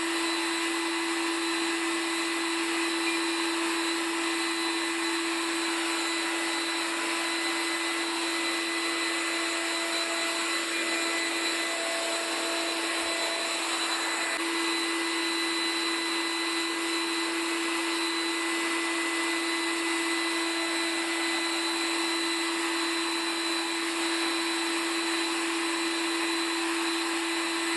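Liquid-cooled vacuum turbines of a homemade central vacuum cleaner running continuously at a constant speed, a steady hum with an even hiss of rushing air.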